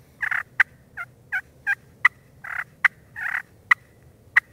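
Turkey call worked by a hunter, making soft, contented hen clucks and purrs in imitation of a hen. About eight short, sharp clucks are spaced irregularly, with three brief rolling purrs between them.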